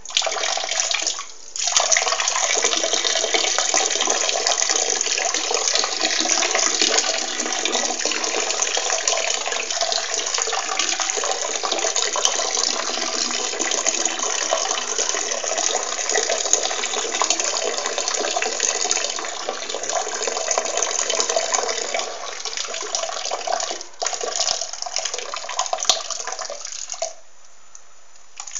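A person urinating, the stream splashing steadily into water. It starts at once, breaks off briefly about a second and a half in, falters once near the end, then stops, followed by a couple of last short spurts.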